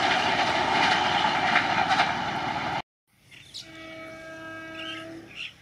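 A passenger train running past at high speed and away down the line, a loud dense rush of wheels and coaches on the rails that cuts off suddenly about three seconds in. Then a distant approaching train sounds one steady horn blast, about a second and a half long.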